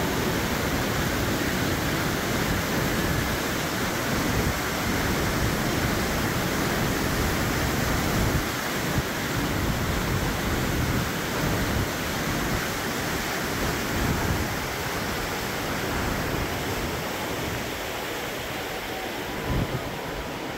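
Loud, steady rush of muddy canal water churning and spilling through a small headworks on an irrigation canal off the Indus River.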